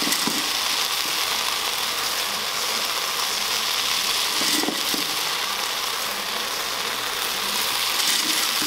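Steady sizzling hiss from sauce and vegetables frying in a hot steel wok under a layer of crushed fried noodles.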